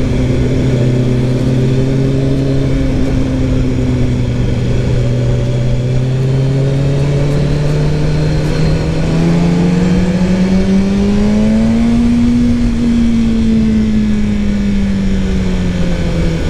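A motorcycle engine running under way at steady revs. Its pitch rises slowly over several seconds to a peak about two-thirds of the way through, then falls back near the end.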